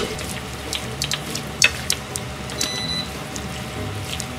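Pasta sizzling in a frying pan with its cooking water, bacon and onion, with scattered light clicks of wooden chopsticks against the pan as it is stirred. A short high tone sounds about two-thirds of the way through.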